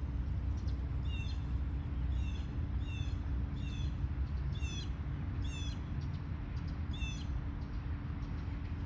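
A bird calling over and over, about seven short high chirps spaced roughly a second apart, over a steady low outdoor rumble.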